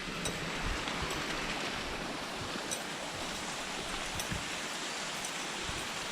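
Steady rushing noise, with a few faint sharp ticks.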